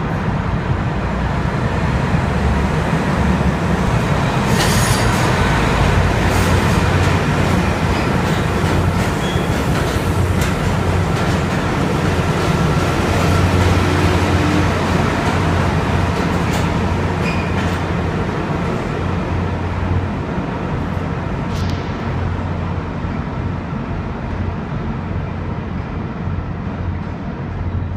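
Yellow subway work train running through an underground station: a loud, steady rumble of wheels and running gear on the rails, with sharp clicks and clanks every few seconds. It eases off over the last several seconds as the train pulls away.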